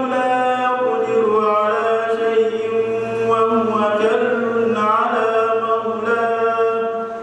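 A man reciting the Qur'an in Arabic in a slow melodic chant into a handheld microphone. He holds long notes and slides between pitches, and trails off near the end.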